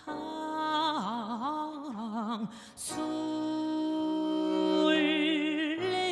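Korean fusion gugak music: a melody line with wide vibrato and sliding pitch bends, breaking off briefly about three seconds in, then settling on a long held, wavering note over sustained lower accompaniment.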